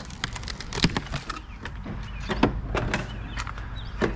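Irregular knocks and cracks of wooden boards being struck and pried loose from a house wall during hand demolition, the sharpest about a second in and again midway, over a low steady hum.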